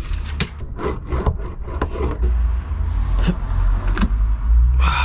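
Scraping, rubbing and irregular light clicks from handling and pressing down foil-backed sound deadener sheet, over a steady low rumble.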